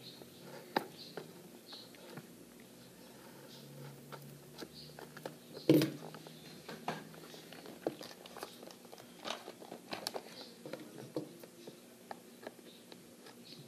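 Plastic and cardboard toy packaging being handled and cut open with a pocket knife: irregular crinkles, clicks and scrapes, with one louder knock about six seconds in.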